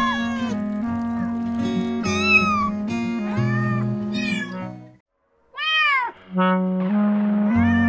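A cat meowing several times, short rising-and-falling calls, over gentle background music. The music and meows cut out for a moment about five seconds in, then a meow and the music resume.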